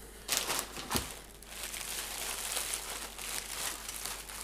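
Plastic wrapping and tissue paper rustling and crinkling as a boxed model locomotive is lifted out and handled, with a few sharp crackles in the first second.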